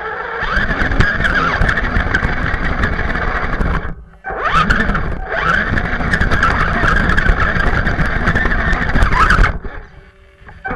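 BSD BT1001 radio-controlled rock crawler's electric motor and geared drivetrain whining as it is driven, heard close up from the onboard camera. The whine wavers with the throttle and stops briefly about four seconds in and again near the end.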